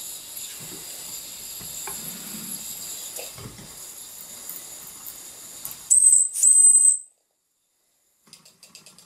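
Mamod SR1A toy steam roller hissing steam, with a few light knocks as it is handled, then its steam whistle blown twice about six seconds in: a short high blast followed by a longer one.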